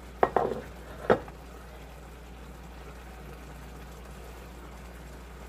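Metal tongs clacking against the pasta pot twice, about a second apart, as spaghetti is lifted from the boiling water. Under them, a low steady simmer from the stove.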